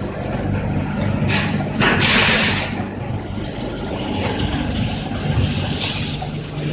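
Cat litter packing machine line running: a steady mechanical hum, with loud bursts of hiss about a second and a half in and again near the end.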